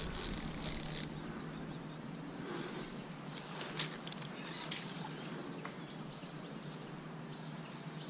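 Faint outdoor ambience by the water: a brief hiss in the first second, then a few soft clicks and several short, high bird chirps about a second apart.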